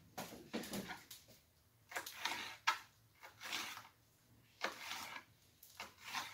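Kitchen knife cutting a red pepper on a cutting board: several short strokes at uneven intervals.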